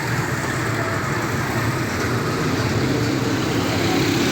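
Steady street traffic noise with an engine running, a constant low rumble with no sharp events.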